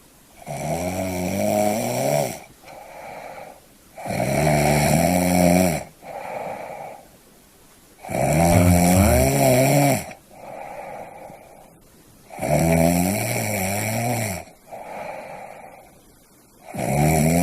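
Loud snoring in a regular rhythm: about every four seconds a long, rattling, pitched snore on the in-breath, then a shorter, softer sound on the out-breath. About five such snores.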